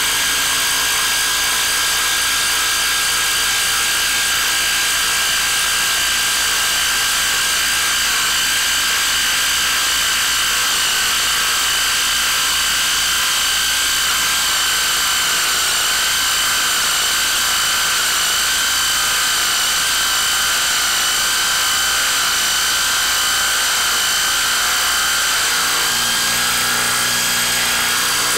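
DeWalt DCF890 cordless impact wrench hammering without a break as it drives a long lag screw into a wood stump under heavy load. Its tone shifts slightly near the end.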